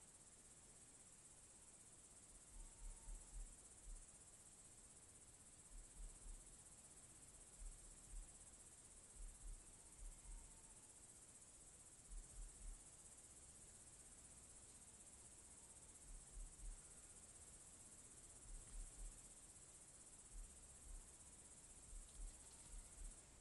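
Near silence: faint, steady, high-pitched chirring of night insects, with soft low thumps in short runs of three or four every couple of seconds.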